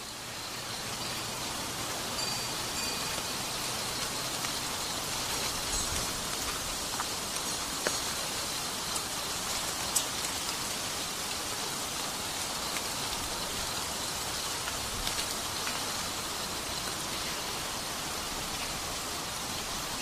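Steady rain falling, with scattered sharp drips. A brief high chirp comes about two seconds in.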